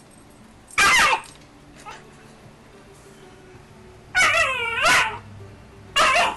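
Alaskan Malamute puppy barking in play: one sharp bark about a second in, a longer drawn-out double bark about four seconds in, and another bark near the end.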